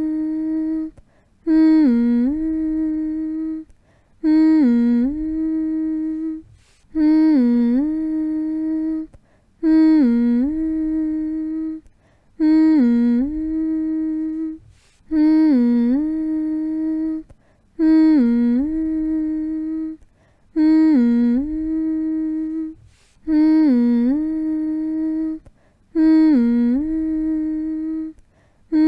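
A voice humming one low phrase over and over, about every two and a half to three seconds: a quick dip in pitch, then a long steady held note, with a short breath-like pause before each repeat.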